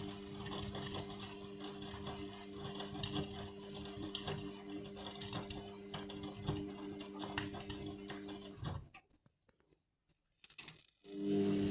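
Indesit washing machine on the first rinse of a synthetics cycle: its motor hums steadily while the drum turns the full load, with many small clicks and ticks. About nine seconds in the sound drops to near silence, and a louder steady hum starts again shortly before the end.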